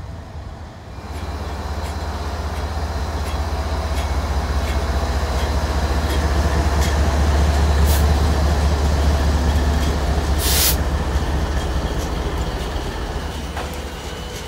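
A GE ES44C4 and an EMD SD70ACe-P4 diesel locomotive pass close by, their deep engine drone swelling to its loudest as they go by and then easing. Freight cars follow, rolling with scattered clicks of the wheels on the rails, and there is a brief hiss about ten seconds in.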